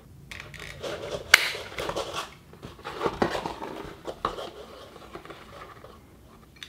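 A handheld circle paper punch pressed through cardstock to cut half-circle notches, giving a few sharp clicks (the loudest a little over a second in) among paper rustling and handling.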